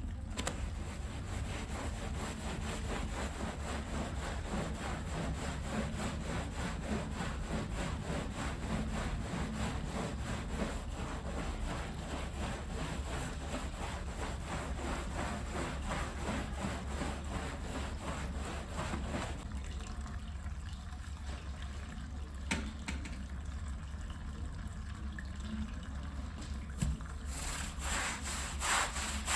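A wet rug being scrubbed in quick, repeated strokes over a steady low hum. The scrubbing grows louder near the end.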